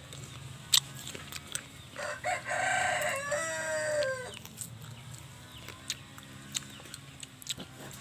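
A rooster crows once, about two seconds in: one drawn-out call lasting about two and a half seconds that drops in pitch at the end. A few sharp clicks and taps sit around it, the loudest just under a second in.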